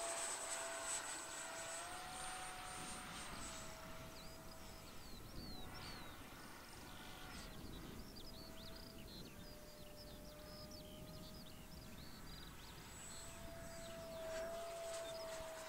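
Electric ducted fan of an RC jet (ZOHD Delta Strike, 50 mm EDF) whining faintly in flight, its pitch stepping up and down a few times with throttle changes. Short high bird chirps come and go through the middle, over a low wind rumble.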